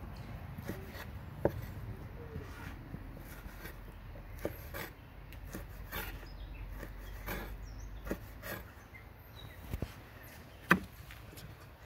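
Knife slicing cooked meat on a wooden cutting board, the blade knocking against the board at irregular intervals. The sharpest knock comes near the end.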